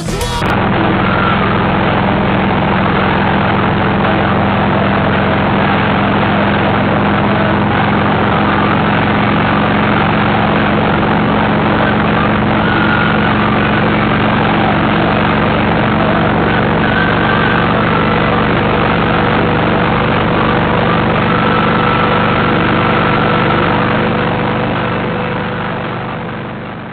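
Harley-Davidson Road Glide's V-twin engine running steadily at highway cruising speed, with wind rushing past the microphone; the sound fades out near the end.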